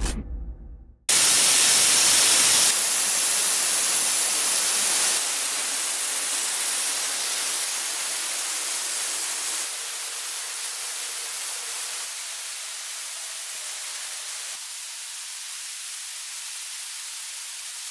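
Waterjet cutting through a stone slab: the high-pressure jet hissing loudly and steadily, dropping in level in several abrupt steps.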